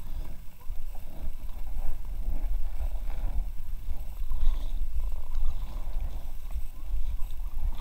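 Water splashing and lapping against an inflatable kayak as it moves along, over a steady low rumble.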